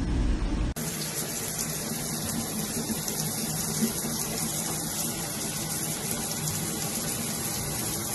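Water running steadily from a tap into a bathtub, a constant rush that starts suddenly about a second in.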